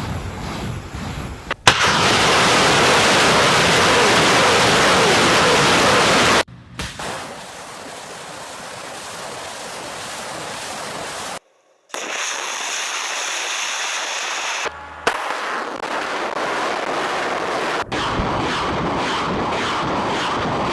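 Multiple rocket launchers firing salvos, heard as a run of short clips: a long, loud rushing noise of rockets leaving the launcher, then other launches, each broken off by a sudden cut.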